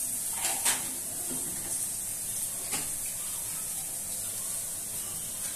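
Broccoli and corn frying gently in a pan over a low gas flame: a steady high sizzling hiss, with a couple of light clicks about half a second and nearly three seconds in.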